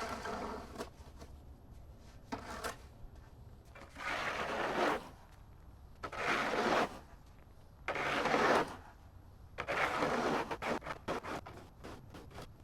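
Snow being cleared by hand: long scraping strokes about every two seconds, turning into quicker, shorter strokes near the end.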